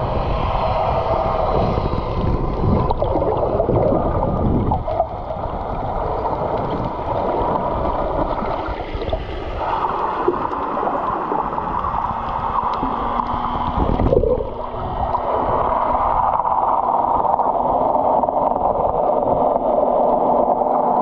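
Motorboat under way: engine running with water rushing and splashing against the hull. A steady low hum joins about twelve seconds in.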